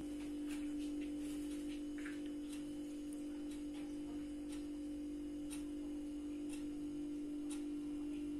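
A steady low hum with faint ticks about once a second.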